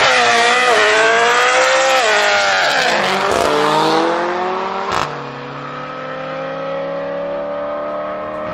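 BMW M3 E92's V8 launching hard with its rear tyres spinning, the revs wavering high, then dropping on an upshift and climbing again as the car pulls away. A sharp crack about five seconds in, after which the engine note is quieter and keeps rising slowly as the car draws away.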